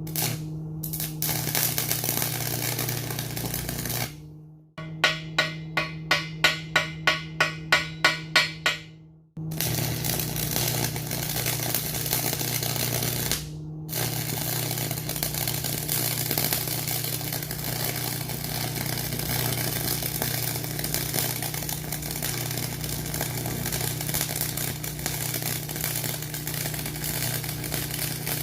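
Electric arc welding on the steel of a snapped forklift arm: the arc's steady crackling sizzle, cut off sharply a few times. For a few seconds in the first third, a run of quick, even taps comes at about two and a half a second.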